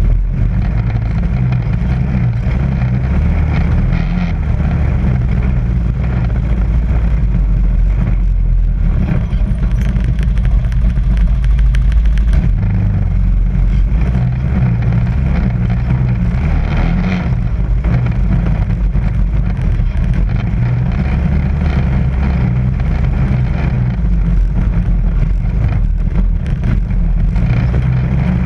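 ATV engine running steadily as the quad crawls over rocky trail, with a patch of clicks and clatter about a third of the way in.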